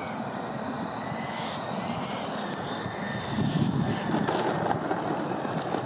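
Freewing MiG-29 RC jet's twin electric ducted fans running with a thin whine on landing approach. About three and a half seconds in, the touchdown and roll-out on the dirt runway add a rougher rumble and rapid crackle of wheels over grit.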